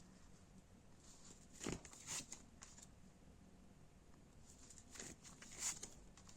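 Near silence with a few faint, short rustles and brushes of tarot cards being handled on a table, about five in all.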